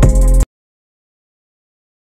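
Background music with a steady beat cuts off suddenly about half a second in, leaving silence.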